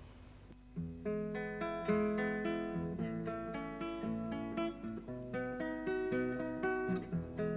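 Acoustic guitar picking a melody of single plucked notes over bass notes, coming in about a second in after a faint hiss.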